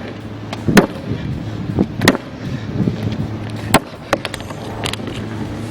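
Hammer blows on a molded urethane-polymer motorcycle part: several hard, irregular strikes, the loudest about a second, two seconds and nearly four seconds in, with a few lighter taps between.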